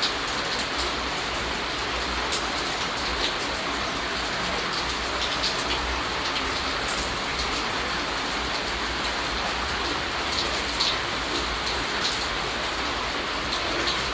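Steady rainfall, an even hiss of rain with many separate raindrop ticks scattered through it and a low rumble underneath.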